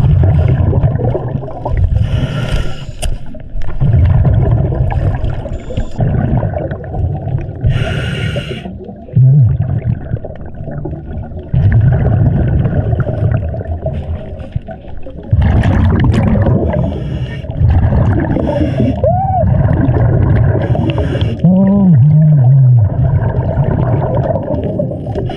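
Scuba diver breathing through a regulator, heard through an underwater camera: long rumbling stretches of exhaled bubbles alternate with short hissing inhales every few seconds. Near the end come a few short, muffled sliding tones.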